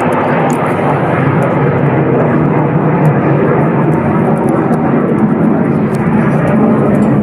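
Three Eurofighter Typhoon jets, each with twin EJ200 turbofans, flying overhead: a loud, steady jet rumble that swells slightly toward the end.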